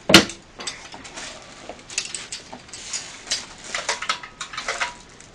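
Chrome-plated metal pasta-rolling machine being handled and set down on a table: a sharp metallic knock just after the start, then scattered clinks and taps of metal parts.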